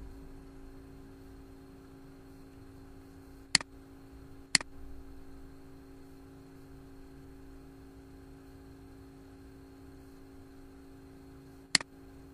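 Three sharp computer mouse clicks, two about a second apart and a third near the end, over a steady low electrical hum.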